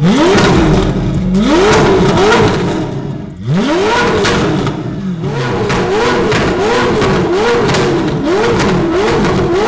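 Ferrari 488 Pista Spider's twin-turbo V8 revved repeatedly at a standstill through a Ryft titanium exhaust with cat bypass pipes. A few longer revs come first, then a quick run of short, even blips, with sharp cracks between them.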